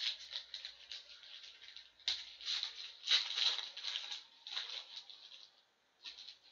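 Crinkling and rustling of trading-card pack wrappers and cards being handled, in irregular crackly bursts that die away about five and a half seconds in.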